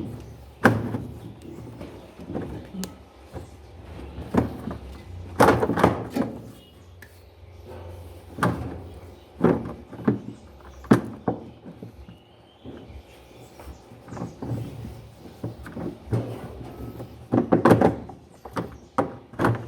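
Irregular knocks and clunks of washing-machine parts being handled and pressed into place during reassembly, with a quick cluster of knocks near the end.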